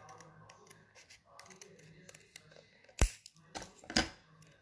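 Scissors snipping through a paper cutout, a run of small clicks, then a sharp snap about three seconds in. Just before the end, louder paper rustling and crackling as the cut pieces are handled.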